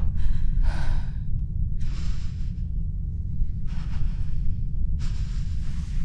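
A young woman breathing heavily in fear, four audible breaths over about six seconds, over a steady low rumble.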